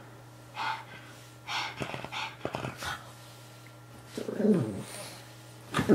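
Pug grunting and snorting in short bursts while playing with a plush toy, then a longer growl about four seconds in that falls in pitch, followed by a louder burst near the end.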